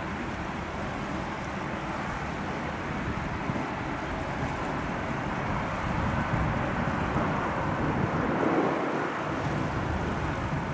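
Jet engine noise from an Airbus A350's Rolls-Royce Trent XWB engines as the airliner touches down and rolls out on the runway, with wind buffeting the microphone. The steady rush grows a little louder past the middle.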